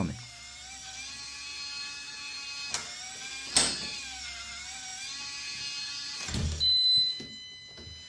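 SwitchBot smart lock's small electric motor whining as it turns the door's thumb-turn, its pitch wavering slightly, with two sharp clicks about three seconds in. The motor stops near the end, leaving a thin steady high tone.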